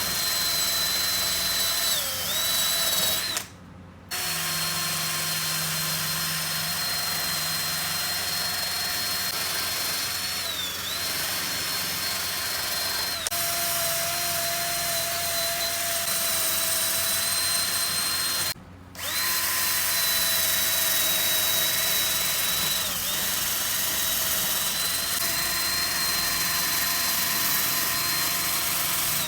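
A handheld electric power tool running with a steady high whine. Its pitch sags briefly a few times as it bears on the work, and it stops twice for about half a second.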